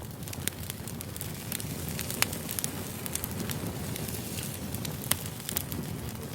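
Campfire sound effect: a steady hiss of burning wood with irregular sharp crackles and pops, the loudest about two seconds in and again near five seconds.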